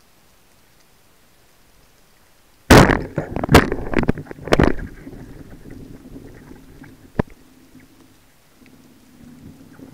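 Speargun fired underwater: a sudden loud crack about three seconds in, followed by a few more sharp knocks over the next two seconds as the shaft strikes and the speared fish thrashes, then a single click a couple of seconds later and a low rumble near the end.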